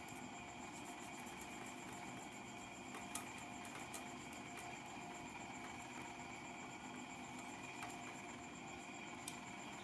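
Faint steady hum, with a few light clicks about three, four, eight and nine seconds in.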